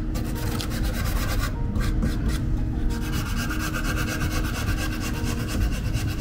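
Sandpaper on a hand sanding block rubbed back and forth over a Honda Beat's body panel in quick, even strokes, with a brief pause about a second and a half in.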